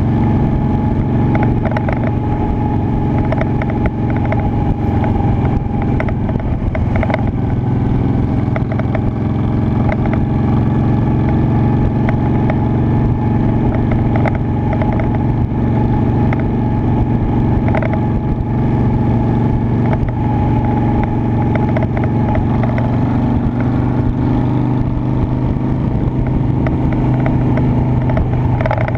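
Honda Shadow Spirit 750's V-twin engine running under way. It holds steady, with its pitch shifting a little up and down as the throttle changes in the second half.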